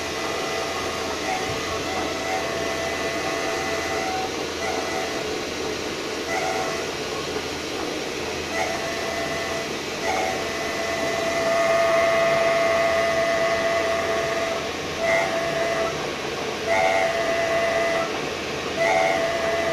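VW Touareg prop shaft centre bearing spinning in a lathe, with a whistling squeal that comes and goes over the steady running. The squeal is the noise the owner takes to be his car's fault, coming from this nearly new centre bearing.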